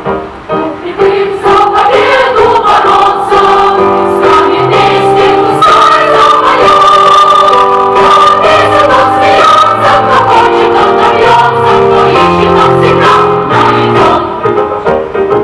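A choir singing a song in several voices with instrumental accompaniment, sustained sung notes over a bass line that steps from note to note.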